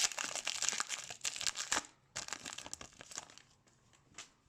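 Foil hockey card pack wrapper crinkling and tearing as it is opened, dense crackling for about two seconds, then a few lighter rustles and ticks that fade out.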